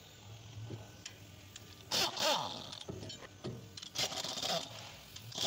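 Impact wrench hammering in short bursts on a bolt at the rear differential mount, once about two seconds in and again about four seconds in.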